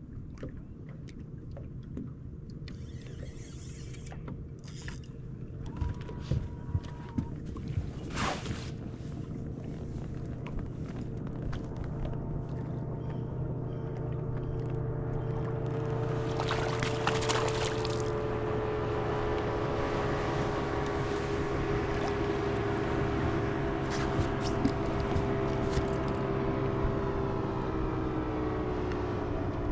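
Bass boat's outboard motor running at low speed, a steady hum that grows louder and fuller from about halfway through. A few sharp knocks are heard between about six and eight seconds in.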